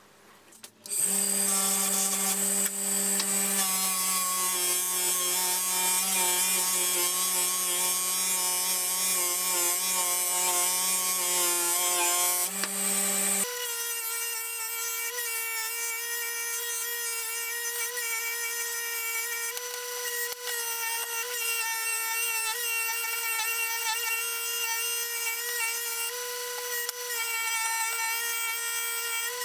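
Bench-mounted electric motor spinning a small arbor-mounted wheel, with a steady whine over a hiss of metal being worked on the wheel. The hatchet's cast aluminium handle and steel head are held against the wheel. The sound starts about a second in, then changes abruptly to a different, higher steady whine about halfway through.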